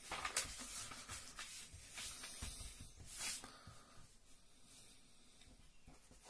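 Faint rustling and sliding of a sheet of ruled notebook paper being moved and smoothed on a table, a few short swishes in the first three seconds or so, then only faint quiet handling.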